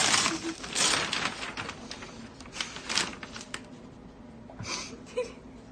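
Gift wrapping paper being torn and pulled off a present in a few quick rips, loudest at the start and about a second in, with another rip around three seconds. The paper then settles into fainter rustling.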